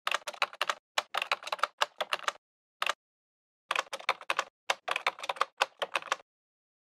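Keyboard-typing sound effect: rapid key clicks in two runs with a short pause between them, stopping a little after six seconds in.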